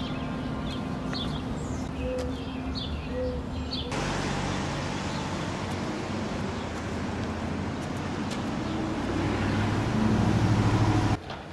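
Outdoor ambience: a few short bird chirps over a low hum, then, after an abrupt change about four seconds in, a steady rumble of road traffic that grows louder near the end and cuts off.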